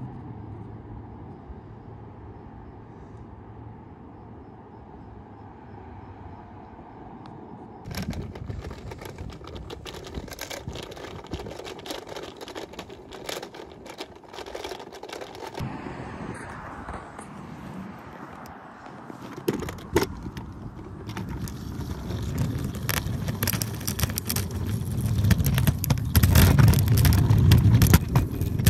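Street noise. A steady hum gives way to about eight seconds of crackling and scraping, then a low rumble of scooter wheels rolling over pavement, with wind on the microphone, builds up over the last several seconds and is loudest near the end.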